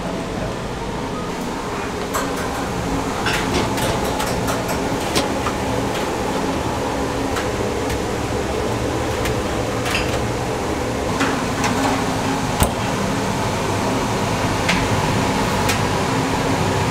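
Steady whirring hum of kitchen ventilation machinery, with scattered light clicks and knocks of kitchen utensils. The sharpest knock comes about two-thirds of the way through.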